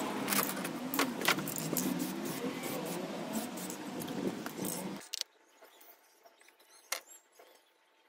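Aerosol spray-paint can handled and shaken, its mixing ball rattling in sharp, irregular clicks over a steady outdoor background noise. About five seconds in the sound cuts to a much quieter stretch with a single click near seven seconds.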